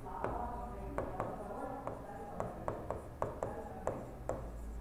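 Pen writing on an interactive display screen: irregular light taps and scratches as the words are written.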